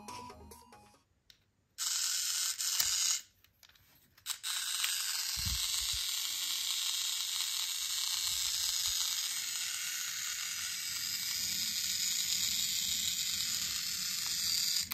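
Small toy DC gear motor whirring steadily, once for about a second near the start and then continuously from about four seconds in until it cuts off near the end. It runs with no battery or solar panel connected, on what may be leftover charge in the kit's capacitor.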